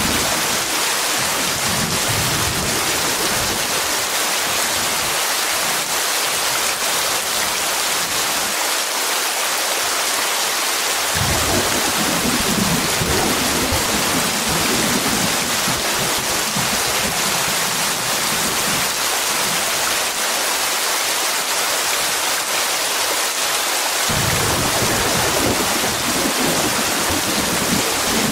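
Heavy rain falling in a steady hiss, with long low rolls of thunder, one starting about eleven seconds in and another near the end.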